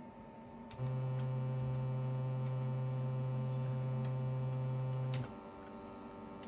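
Amiga 2000 synth playing a single sawtooth bass note, held at one steady pitch for about four and a half seconds and cut off abruptly, with a click at its start and end.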